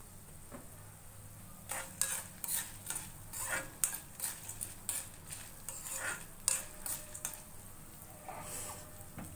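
A metal spatula stirring and scraping dry-roasting dal, coriander seeds, peppercorns and dried red chilies in a kadai: a quick run of scrapes and clinks from about two to seven seconds in, then one softer scrape near the end.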